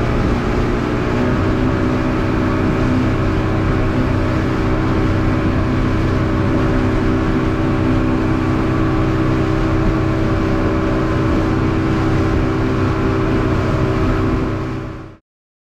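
Outboard motor on a small fibreglass runabout running steadily at speed, with the rush of water and wind over it. It cuts off abruptly near the end.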